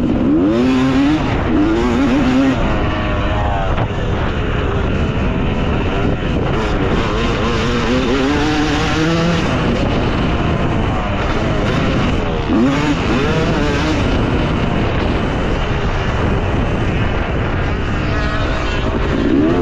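Yamaha YZ250 two-stroke motocross bike's engine revving hard, its pitch climbing in repeated rising sweeps over a loud, steady rush of noise.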